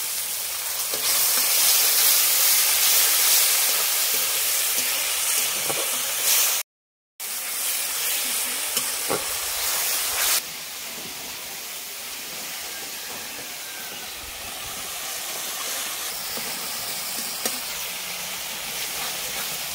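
Spice and tomato masala in hot mustard oil sizzling and hissing with steam after a splash of water is added to the pan. The hiss is loudest at first, breaks off for about half a second, and drops to a quieter sizzle about ten seconds in.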